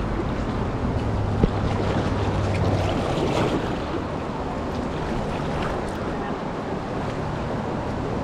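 Whitewater river rushing, with wind buffeting the microphone. A low steady hum underneath fades out about three seconds in.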